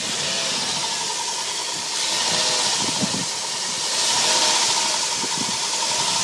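Chrysler Voyager's 3.3-litre V6 engine running with HHO gas fed into its intake, given two light revs about two and four seconds in and idling between them. A hiss swells with each rev over a steady whine.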